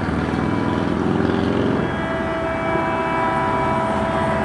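A low engine rumble, then from about two seconds in a distant locomotive air horn sounding one long steady chord.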